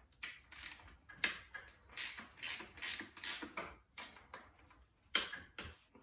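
Ratchet wrench clicking in short, uneven strokes while undoing the bolts that hold on a dirt bike's front brake caliper.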